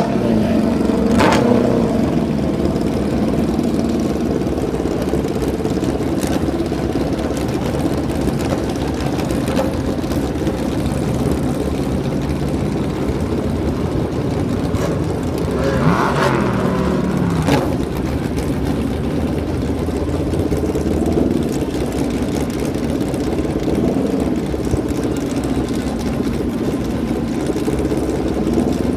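Drag-racing motorcycle engines idling steadily, with a couple of brief revs about a second in and again around sixteen seconds in.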